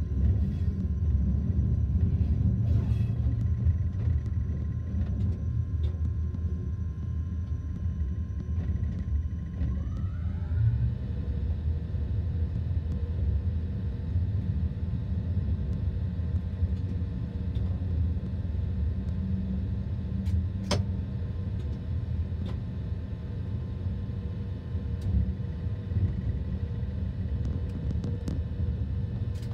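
Train running slowly along depot tracks, heard from the cab: a steady low rumble with a steady hum of tones. About ten seconds in the hum rises in pitch, and a sharp click comes about twenty seconds in.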